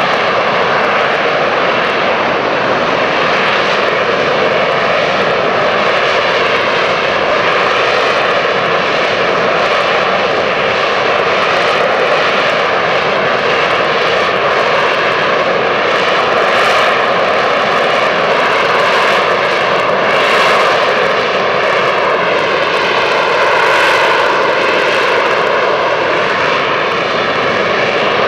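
AV-8B Harrier II's Rolls-Royce Pegasus turbofan running loud and steady, a dense jet noise with whining tones that drift slowly up and down in pitch.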